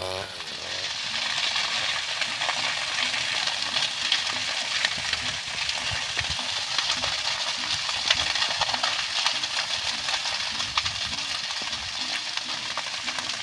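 Dry grass and brush burning in an open grass fire, with a dense, steady crackling and popping.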